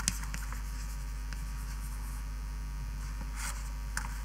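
Writing strokes on a board or tablet: a sharp tap at the start and a few faint short scratches, over a steady low hum.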